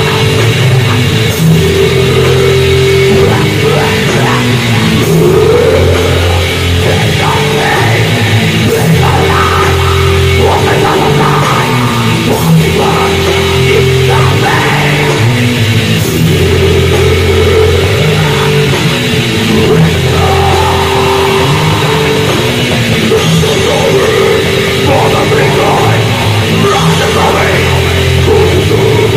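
Death metal mixed with harsh noise: distorted guitars and drums in a loud, dense, unbroken wall of sound, with held low notes that shift every second or two.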